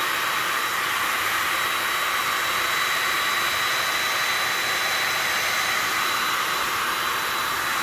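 DEFA electric cab heater's fan running at full speed: a steady rush of blown air with a thin, high, steady whine from the fan motor.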